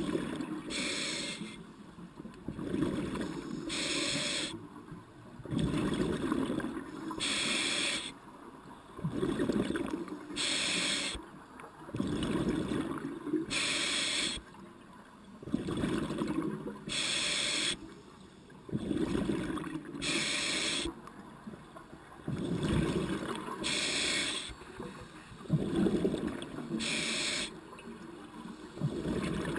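Scuba diver breathing through a regulator underwater: a short hissing inhale followed by a longer, lower bubbling exhale, repeating steadily about every three and a half seconds, nine breaths in all.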